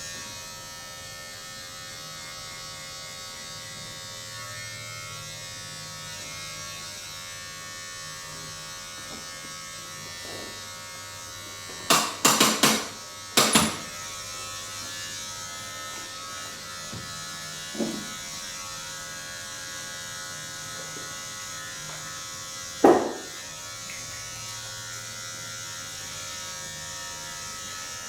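A small electric appliance buzzing steadily, with sharp smacks against it. About twelve seconds in there is a quick run of them, and about ten seconds later one loud single smack.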